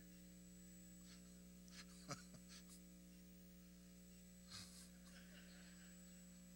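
Near silence with a steady electrical mains hum, and two faint short sounds about two and four and a half seconds in.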